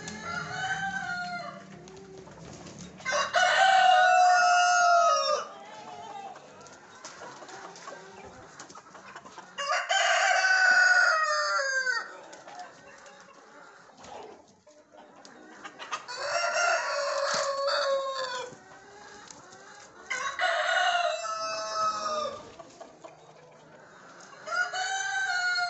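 Black Australorp rooster crowing again and again: about six crows of roughly two seconds each, a few seconds apart, the first one faint.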